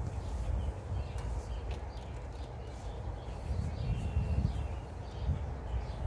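Birds chirping faintly and sparsely over a low, uneven rumble, with a few light knocks.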